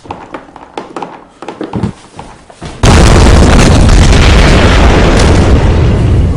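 A few scattered knocks and clicks, then about three seconds in a sudden, very loud explosion that carries on as a dense rumbling blast.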